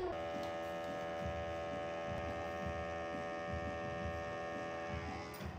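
A machine's steady electric buzz at one fixed pitch, starting and cutting off abruptly.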